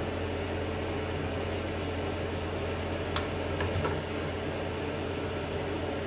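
Steady mechanical hum like a fan or air conditioner, with one sharp click a little past halfway and a few softer ticks just after it.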